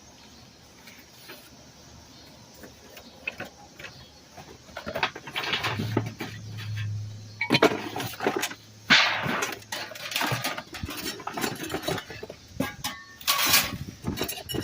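Rummaging through discarded junk: scattered rustles, knocks and clattering of objects being moved, beginning about five seconds in.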